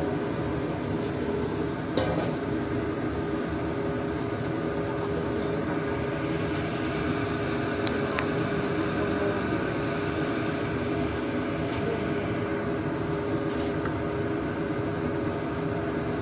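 Steady hum and rush of a gas stove burner under a wok of fish steaming, with a few light metal clinks and a sharper knock about two seconds in.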